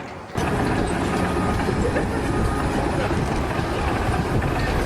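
Steady mechanical noise of a machine or vehicle running, starting abruptly just after the start.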